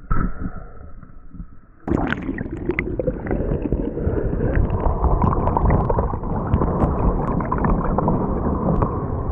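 Churning surf water heard underwater through an action camera's housing. It is muffled and quieter for the first two seconds, then a dense rushing and gurgling sets in abruptly, with scattered small clicks through it.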